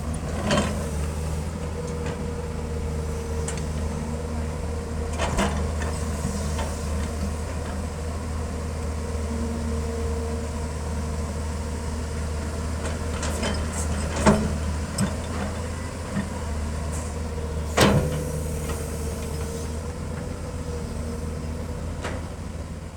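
Caterpillar 320 excavator's diesel engine running steadily, with a held hydraulic whine over it and a few short sharp knocks, two of them loudest in the second half.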